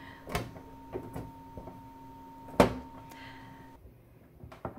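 Clear plastic top cover of a 3D printer being handled and clicked into place: a few light knocks, then one sharp snap about two and a half seconds in and another click near the end. A faint steady hum stops about four seconds in.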